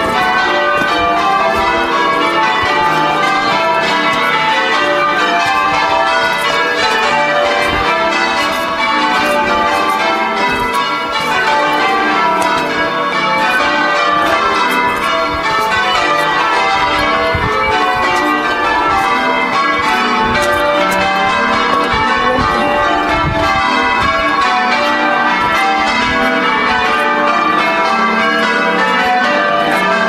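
Church tower bells rung in changes: a continuous run of many bells striking one after another in shifting order, with no break.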